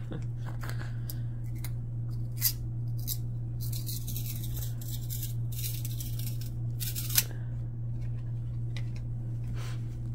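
Cardboard football trading cards sliding and rubbing against each other as a stack is thumbed through, with two sharp card snaps, one about two and a half seconds in and a louder one about seven seconds in. A steady low hum sits underneath.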